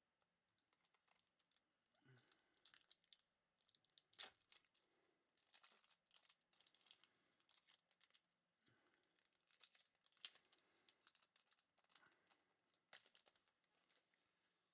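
Faint crinkling and tearing of Topps Merlin Chrome foil card-pack wrappers and rustling of the cards being handled, in many short scattered crackles.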